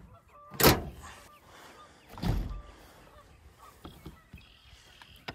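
Knocks from handling a pickup truck's camper topper at its side window: a sharp knock under a second in and a duller thud about two seconds in.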